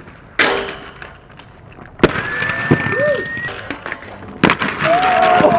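Skateboard riding: three sharp cracks of the board, about two seconds apart, each followed by the rush of wheels rolling.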